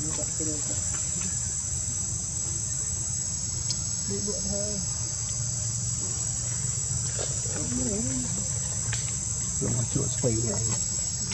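Steady, high-pitched chorus of insects, with faint distant voices now and then.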